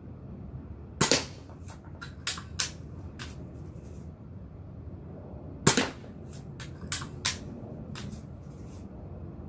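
Daisy 188 spring-piston BB pistol fired twice, two sharp snaps about four and a half seconds apart, with several lighter clicks between and after the shots.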